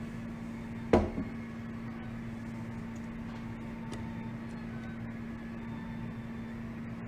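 A steady low hum of room noise, broken about a second in by a sharp knock and a smaller second knock just after.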